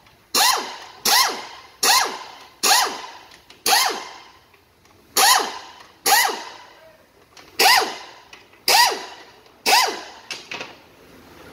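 Pneumatic air ratchet loosening the valve body bolts of a 4L60-E automatic transmission in short bursts, about ten of them, each falling in pitch as it spins down.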